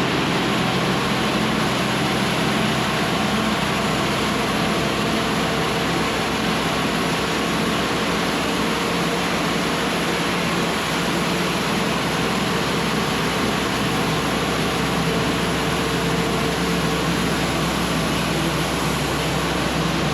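Diesel-powered band sawmill running steadily, its engine and band blade going with no change in level throughout.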